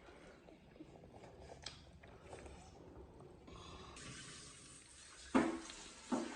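Faint running water, starting suddenly about four seconds in, with a brief loud knock a second later.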